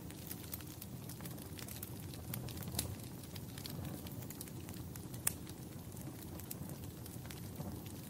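Log fire in a fireplace burning with a steady low rumble and scattered sharp crackles and pops, the loudest about five seconds in.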